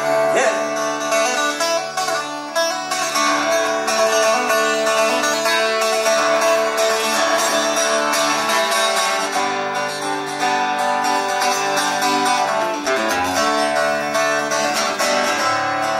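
Solo acoustic guitar playing an instrumental break between sung verses of a folk ballad.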